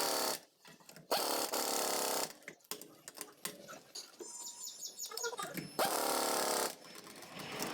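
Pneumatic impact wrench running on the wheel nuts in short bursts of about a second, three times, with quieter gaps between them.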